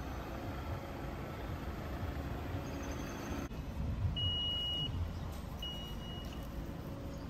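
Low steady rumble of a minivan moving slowly. Then a car's electronic beeper sounds one long high beep, followed by two short ones.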